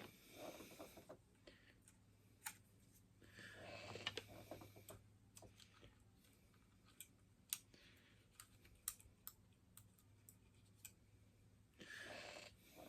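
Faint, scattered small clicks and light rustling of plastic parts being picked off a model locomotive by hand, irregular, with a few brief soft scraping patches.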